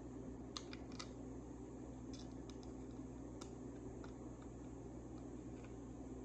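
Faint, light clicks and taps of a small Allen key and an aluminium tear-off spud being handled and tightened on a helmet visor, a few irregular ticks mostly in the first half, over a steady low hum.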